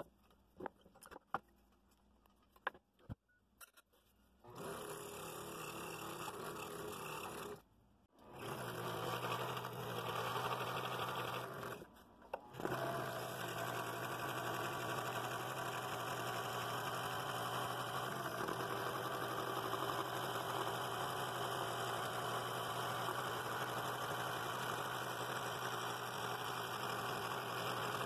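A few light clicks and taps, then a scroll saw starts up and runs with a steady hum and buzz of its reciprocating blade. It stops and restarts twice in the first twelve seconds, then runs on steadily while it cuts through the thin wooden handle blank.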